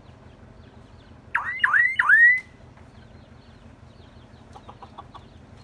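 Myna giving three loud, quick whistles about a second in, each swooping up and levelling off, followed by faint clicking chatter near the end.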